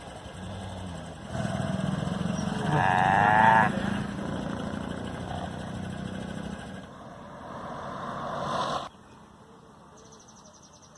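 A drawn-out animal call with a wavering pitch, loudest about three seconds in, over a steady low drone; the sound cuts off sharply near the end.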